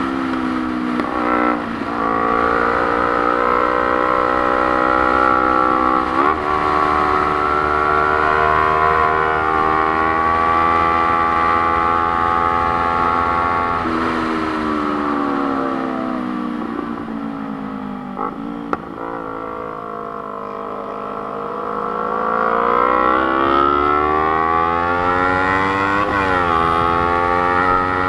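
Sport motorcycle engine running at road speed, its pitch steady for long stretches and broken by a few quick gear changes. About halfway through the pitch jumps up and then falls away for several seconds as the bike slows. It then climbs again as the bike accelerates, with another gear change near the end.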